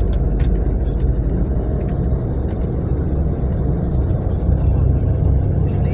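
Cabin noise inside a moving natural-gas-powered city bus: a steady low rumble of engine and road noise, with a few light clicks near the start.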